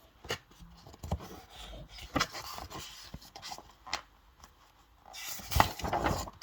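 Rubbing and scraping handling noise with a few light taps, and a louder rustling swish about five seconds in.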